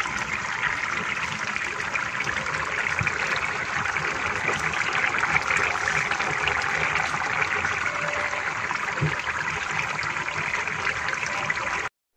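Pot of ginataang balatong, vegetables in coconut milk, bubbling steadily at a simmer with small popping bubbles as the sauce reduces. It cuts off suddenly near the end.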